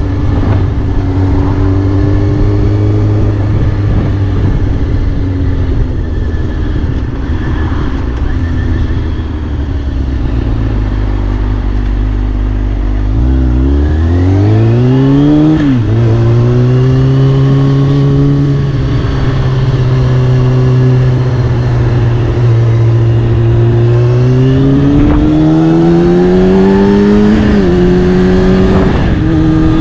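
Kawasaki Ninja ZX-6R inline-four sport bike engine running through a Scorpion titanium exhaust, cruising at a steady pitch. About halfway through and again near the end it revs up under acceleration, and each rise ends in a sudden drop in pitch at an upshift.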